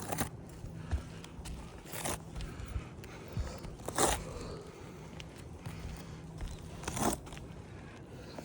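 Slow footsteps scuffing and crunching on a gritty surface, four separate steps a couple of seconds apart, over a faint steady low hum.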